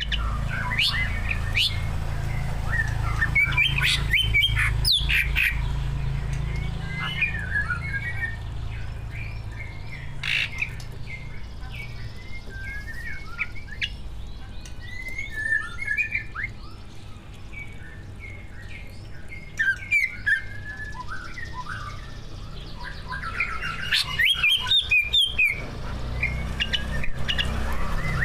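Cucak ijo (greater green leafbird) singing a varied, chattering song of chirps, slurred whistles and squawks, filled with phrases mimicked from other birds. Bursts of rapid sharp notes come about four seconds in and again near the end, over a steady low hum.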